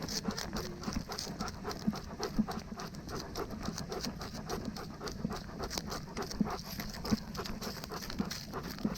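Dog panting in a quick, steady rhythm, close to the microphone of a camera worn by the dog.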